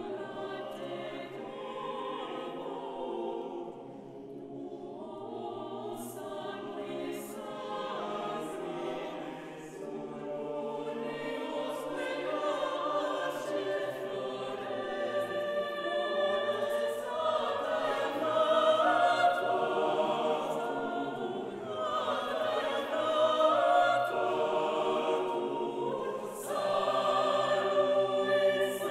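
Mixed choir of men and women singing sustained chords, with hissing consonants cutting through now and then. The singing grows gradually louder, with a loud new entry near the end.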